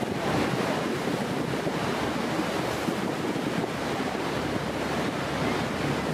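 Steady roar of the Horseshoe Falls' water pouring down close by, mixed with wind buffeting the microphone.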